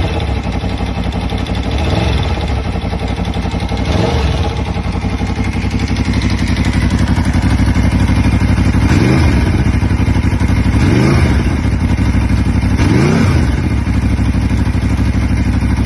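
Aprilia Tuono V4 motorcycle's V4 engine idling, with a series of short throttle blips, the three around the middle the strongest. It is running with the abnormal noise of a burned-out engine bearing.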